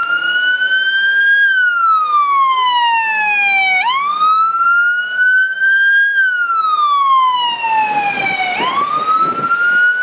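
Scania P310 fire engine's siren sounding a slow wail. Each cycle jumps up quickly, climbs a little more, then falls slowly over about two seconds before the next rise, repeating roughly every five seconds.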